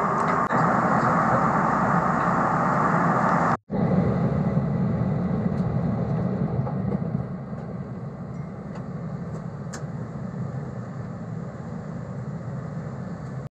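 Airliner cabin noise: the steady rush of jet engines and airflow heard from a passenger seat. It breaks off for an instant a few seconds in, then carries on, a little quieter in the second half.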